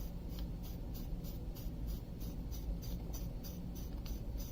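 Hand rubbing and scraping as a section of a lightsaber hilt is spun on its threads and unscrewed.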